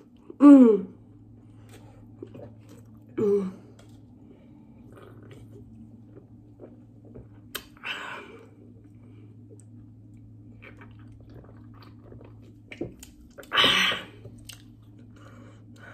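Close-up chewing and mouth sounds of someone eating a burger, with soft wet clicks over a steady low hum. A short vocal sound comes about half a second in, and a loud breathy outburst comes near the end.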